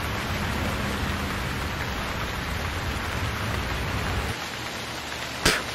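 Steady hiss of rain falling, with a low hum under it that drops away about four seconds in and a single sharp knock near the end.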